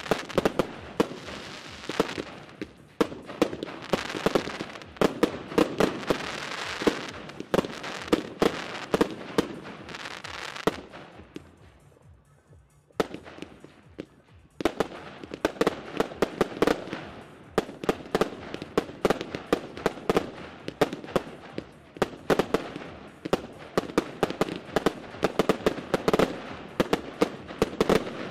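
Consumer fireworks firing in a rapid barrage: a dense run of bangs and crackling from aerial shots bursting. It dies away for about three seconds near the middle, then a fresh barrage starts.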